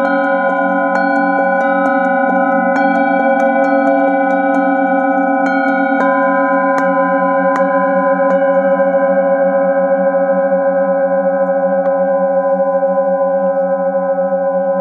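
Several metal singing bowls struck again and again with a padded mallet, their tones overlapping into a sustained ringing chord, some tones wavering slowly. The strikes come often in the first half and only now and then after that.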